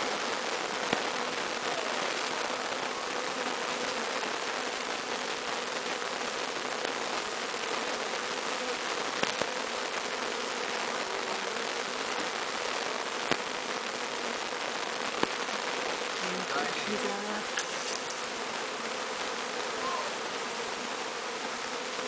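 Honeybee swarm buzzing steadily, a dense hum of many bees, with a few faint ticks.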